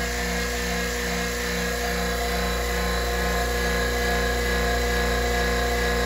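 Electric vacuum pump running steadily, a motor hum with a light regular pulsing, as it pulls the air out of a bell jar to lower the pressure.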